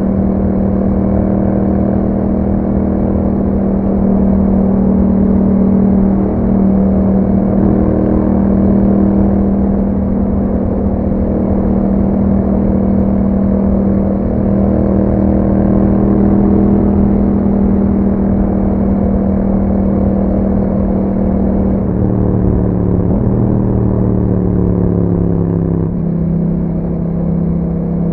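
Yamaha MT-07's parallel-twin engine through an Akrapovic exhaust, running under way at a steady engine speed. Near the end its note steps in pitch a few times and settles slightly lower.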